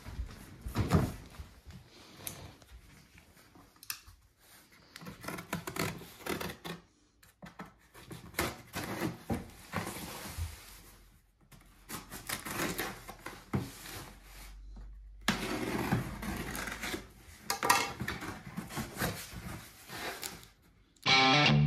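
A cardboard shipping box being handled and opened: set down on a marble table, its packing tape slit with a knife, and its flaps pulled open, giving irregular knocks, scrapes and cardboard rustling. Guitar music comes in near the end.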